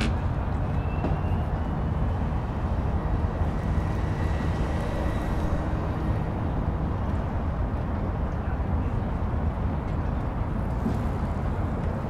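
Outdoor city ambience: a steady low rumble of distant road traffic. A faint thin whine sits over it for a few seconds, ending around the middle.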